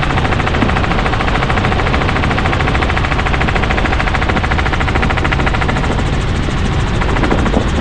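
Tour helicopter in flight, heard from inside the cabin: a steady, fast beat of rotor-blade chop over the engine.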